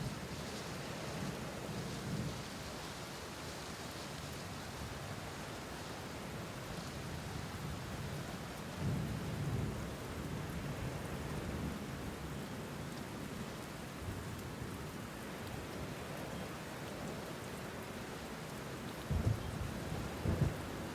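Steady rain with low rolls of thunder, one about nine seconds in and two more close together near the end.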